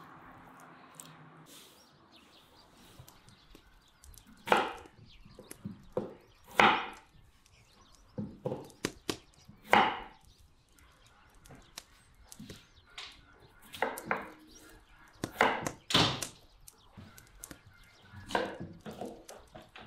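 Kitchen knife cutting potatoes on a wooden cutting board: irregular knocks of the blade on the board, mixed with smaller clicks.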